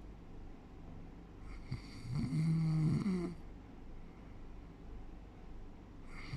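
A sleeping person snoring: one pitched, rattling snore about a second and a half in, lasting under two seconds, with quiet breathing between snores, and the next snore beginning at the very end.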